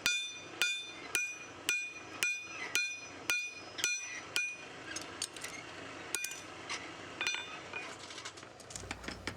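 Rounding hammer forging a knife handle on an anvil, about two blows a second, each strike followed by a ringing anvil tone. After about five seconds the blows become lighter and more irregular.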